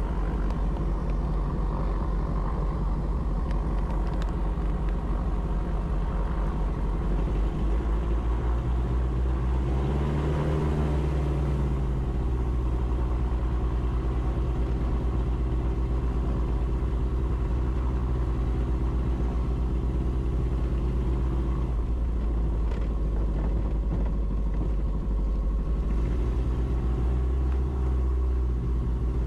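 Piper Twin Comanche's two four-cylinder Lycoming engines running at taxi power, heard from inside the cockpit. There is a brief rise and fall in engine speed about ten seconds in, and small shifts in the engine note later on.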